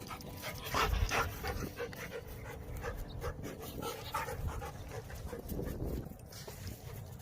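Standard poodle panting, a quick run of breaths at about three a second that fades after a few seconds.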